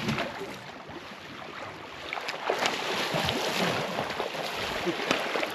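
River water splashing as a salmon is scooped into a landing net beside the boat, the splashing getting louder about two seconds in.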